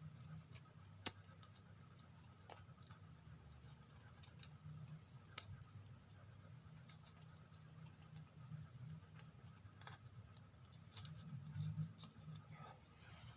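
Faint, scattered small clicks and taps of plastic shower-head parts being handled while the rubber seal is pressed back into its seat, with one sharper click about a second in, over a low steady hum.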